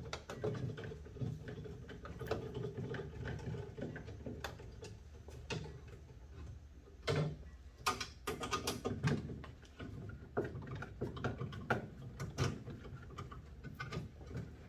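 Scattered clicks, knocks and rubbing as the ice maker's drain hose and catch tray are disconnected and handled, busiest about halfway through, over a low steady hum.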